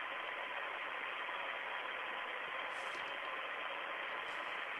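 Steady hiss of the Soyuz spacecraft's onboard audio feed, with faint steady tones running through it and no voices.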